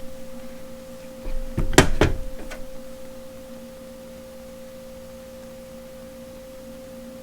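A few sharp clicks and knocks about two seconds in as the metal nosepiece tips of a hand rivet gun are handled and threaded on, over a steady low electrical hum.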